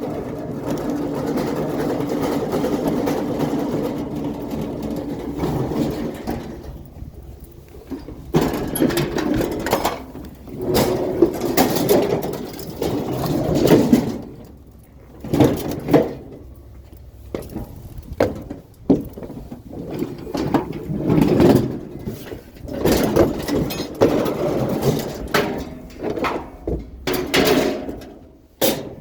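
A metal gas grill being handled as scrap, with irregular knocks, clanks and scraping. A steady engine hum is heard for the first six seconds or so.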